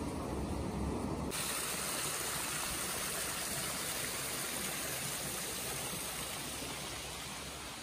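A low rumble, then, about a second in, the steady rush of river water spilling over rocks into a pool, a continuous even hiss.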